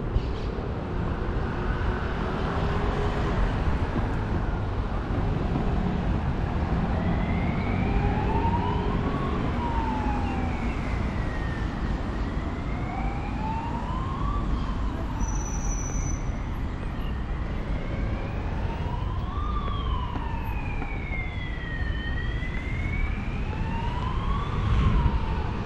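Emergency vehicle siren wailing in slow rises and falls, about five seconds per cycle, starting about a quarter of the way in, over steady city traffic rumble.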